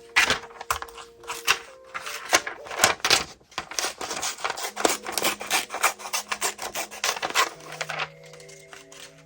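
Quick, scratchy rubbing strokes on paper, several a second, stopping about eight seconds in. Soft background music with held notes plays underneath.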